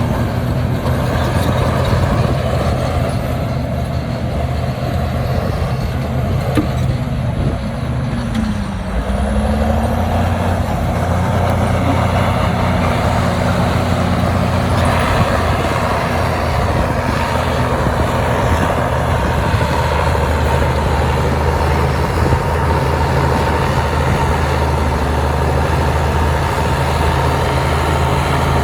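Heavy diesel engine of earthmoving equipment running hard under load, a steady low drone; about nine seconds in its pitch dips and comes back up, then it settles into a fuller steady run.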